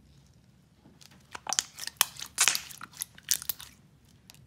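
Clear jelly slime with Fimo slices mixed in, squeezed and kneaded by hand, giving a run of sharp wet clicks and pops that starts about a second in.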